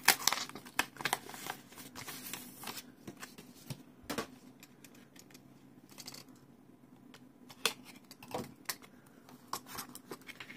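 A glued paper envelope flap being peeled and torn open, then the paper handled: dense crackling and rustling for the first few seconds, then sparser rustles and a few sharp taps and clicks.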